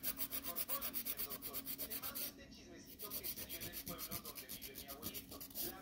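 Nail file rubbing quickly back and forth across the edge of a clear plastic nail tip, shaping it. Two runs of fast, even strokes, about eight a second, with a short pause a little over two seconds in.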